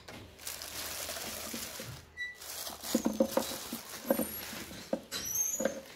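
Clear plastic wrapping rustling and crinkling as it is pulled off a belt and disc sander. From about three seconds in come a few short knocks and taps.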